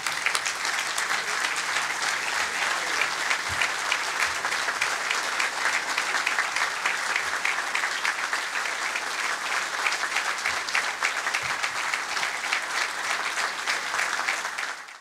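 A large audience applauding steadily, an ovation welcoming a speaker who has just been introduced.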